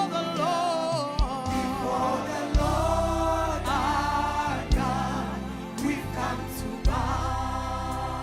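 Gospel worship song: voices singing long held notes with vibrato over a band with bass, and a drum hit about every two seconds.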